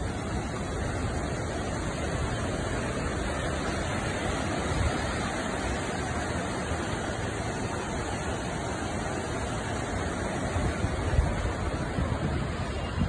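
Steady rushing of a river in flood, its swollen muddy water running fast just below. A few low thumps near the end.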